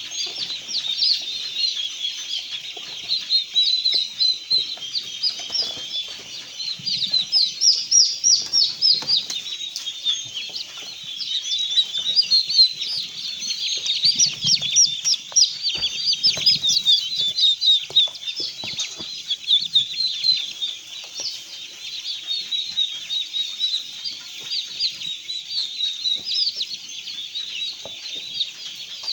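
A flock of birds in a poultry enclosure chirping continuously: a dense chorus of many short, high peeps overlapping one another, with a few faint low clucks or knocks underneath.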